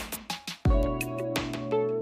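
Background music: a plucked guitar over a steady beat with kick drum and hi-hat.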